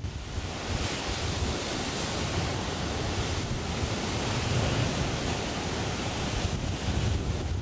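Heavy surf breaking against a rocky reef shelf and blowholes spouting spray, a continuous rush of crashing water. Wind buffets the microphone.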